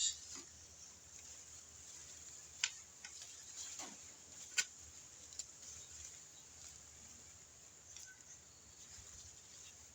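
Hand digging in garden soil for sweet potatoes: scattered scraping and rustling of earth and vines, with a few sharp clicks and snaps, the loudest about two and a half and four and a half seconds in.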